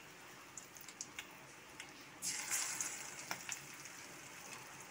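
Cabbage-chicken vada patties shallow-frying in hot oil in a steel pan, a faint steady sizzle with scattered small crackles. A little over two seconds in the sizzle swells briefly as another patty of batter goes into the oil.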